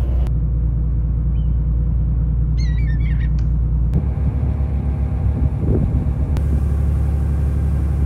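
Engine of a small passenger shuttle boat running under way, a steady low drone heard on board. A few short, high bird chirps come through about three seconds in.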